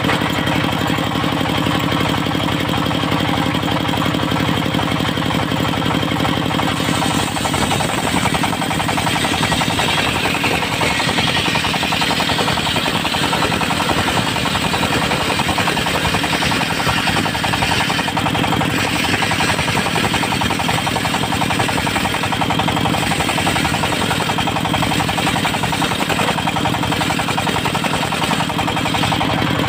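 Diesel engine driving a portable circular sawmill blade, running steadily; about seven seconds in the sound turns rougher and rattling, with a hiss added, as the blade saws through a log of juar wood (Senna siamea).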